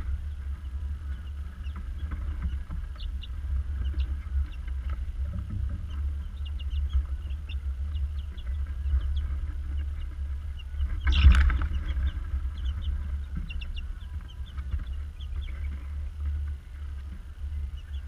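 Chicks peeping in short, scattered high chirps over a steady low hum. There is a brief louder rustle about eleven seconds in.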